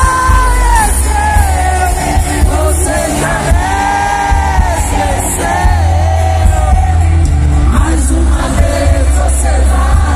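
Live sertanejo duo, two male singers singing into microphones over the band, amplified through a concert PA with a heavy, steady bass.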